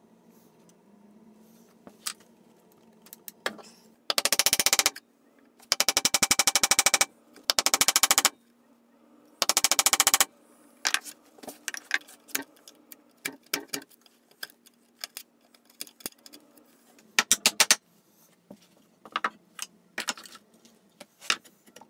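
Chisel chopping and paring a mortise in oak: several runs of rapid sharp knocks, each about a second long, then scattered lighter taps and clicks, with one more short run near the end.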